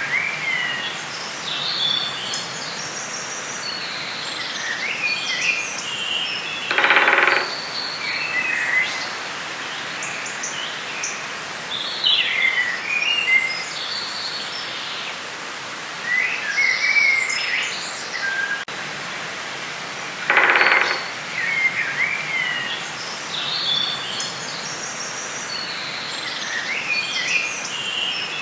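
Forest ambience recording: many birds chirping and singing over a steady background hiss, with a louder, lower-pitched call heard three times, each under a second long.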